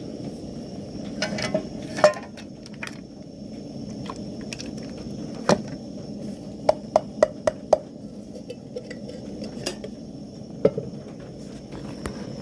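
Metal utensil clinking and tapping against camp cookware: scattered sharp taps, with a quick run of five taps about seven seconds in.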